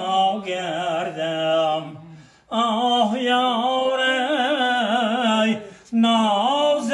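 A man singing a Tajik song in long, ornamented held notes with a wavering pitch. He breaks off for breath twice.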